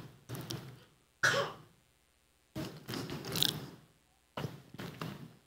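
A man clearing his throat and breathing: four short, quiet sounds spread over a few seconds, the second the loudest.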